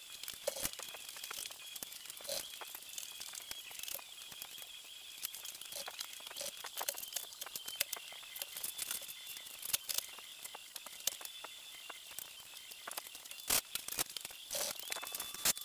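Scattered light clicks, taps and rustles of hand tools and parts being handled, with a faint steady high whine behind them and a few louder knocks near the end.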